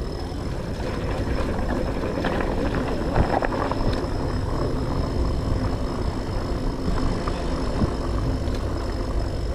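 Wind buffeting the microphone and tyre rumble from an electric beach cruiser rolling over brick pavers, with a faint steady high whine and a few light rattles about two to four seconds in.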